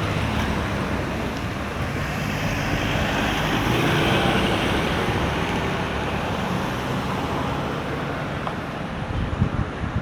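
City street traffic noise, a steady rush of passing vehicles that swells a little around the middle.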